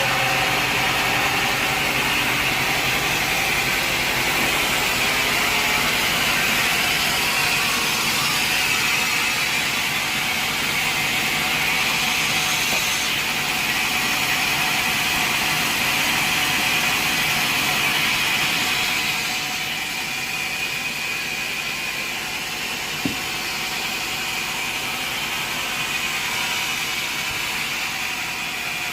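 Band sawmill running steadily, its blade sawing through timber with a steady high-pitched whine over a rushing noise. The sound eases a little about two-thirds of the way through, and one sharp click follows a few seconds later.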